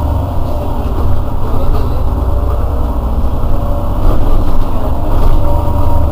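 Irisbus Citelis 12 city bus engine idling at a stop, a loud, steady low rumble.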